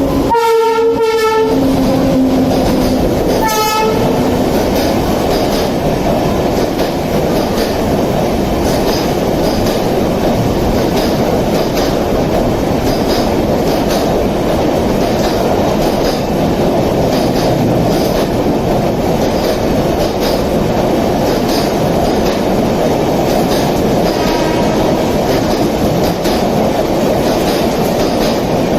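Electric locomotive's horn sounding two blasts, a longer then a shorter, then a Rajdhani Express running through at speed: a steady loud rumble with a regular clickety-clack of wheels over rail joints. A short, fainter horn comes again near the end.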